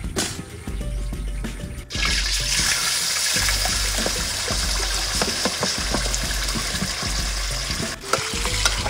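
Chili sauce hitting hot oil in a wok, sizzling loudly. The hiss starts suddenly about two seconds in, after some stirring clatter, with background music and a steady low beat underneath.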